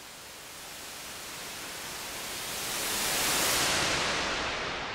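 White noise sweep: white noise swelling steadily in volume to a peak about three and a half seconds in, then dropping away and fading out through a large reverb, the highest hiss dying first.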